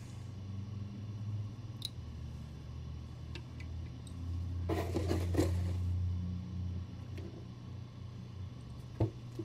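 Hands handling and fitting statue parts into a base: small clicks and taps, with a brief scraping rustle about five seconds in and a sharp click near the end, over a steady low hum.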